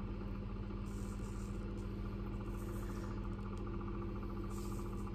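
A steady low hum with a couple of held tones and no distinct events.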